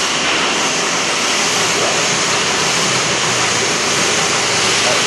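Steady whooshing machine noise from a lab-scale stainless-steel process kettle running, with a faint low hum under it.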